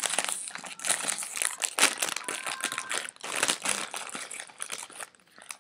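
Plastic chip bag crinkling and crackling as hands pull at it and handle it, dying away near the end.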